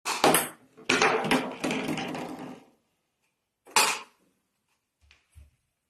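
A clatter of rattling knocks lasting a couple of seconds, then one sharp knock about four seconds in and two faint low taps near the end.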